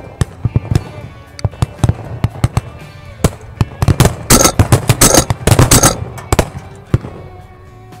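Shotguns from several guns firing in a rapid, irregular volley, densest and loudest from about four to six seconds in, with music underneath.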